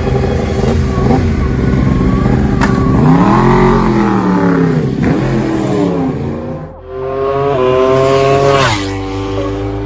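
Racing superbike engines at high rpm, pitch rising and falling as bikes accelerate and pass, with a rev that climbs and then drops sharply near the end.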